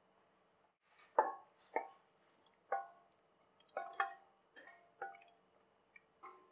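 Thick mushroom-and-peas masala gravy making wet plops and squelches as a ladle stirs through it in a pressure cooker, about eight separate pops at uneven intervals.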